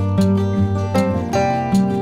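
Background instrumental music with plucked guitar-like string notes over a steady low bass.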